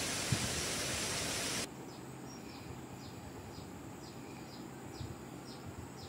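Steady rushing of waterfall and stream water that cuts off abruptly after about a second and a half, giving way to quieter forest ambience with faint, short, high chirps repeating about twice a second.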